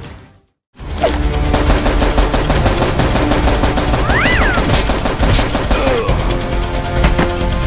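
Rapid automatic gunfire sound effect, a dense run of shots starting about a second in after a brief dropout. A short whine rises and falls about halfway through.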